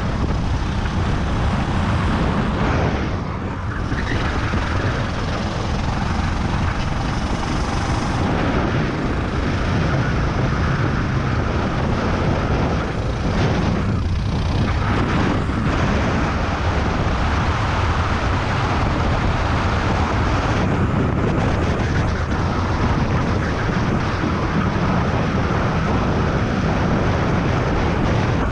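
Racing go-kart engine running hard under load, heard onboard with heavy wind and rushing noise over the microphone. The sound eases briefly about three and fourteen seconds in, where the kart lifts through corners.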